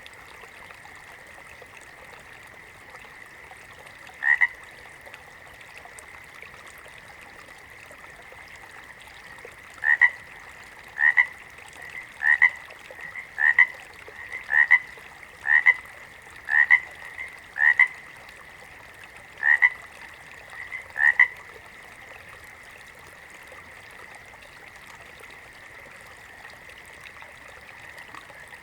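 A frog calling with short croaks: one on its own, then a run of about ten, roughly a second apart, over a faint steady chorus at the same pitch.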